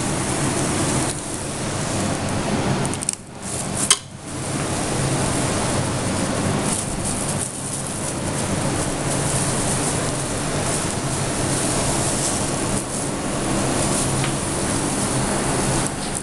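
Steady rushing kitchen noise with a low hum underneath, which drops away briefly about three to four seconds in.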